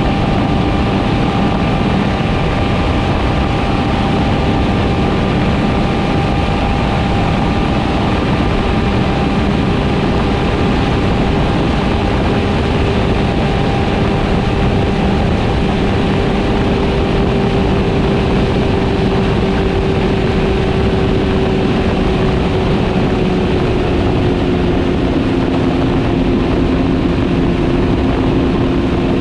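Sport motorcycle engine running at a steady cruise, with a heavy rush of wind and road noise. Near the end the engine note drops a little as the throttle eases.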